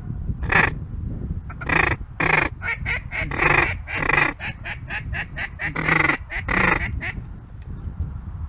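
Geese honking: a rapid run of short honks, about two a second, that stops about seven seconds in. Wind rumbles on the microphone underneath.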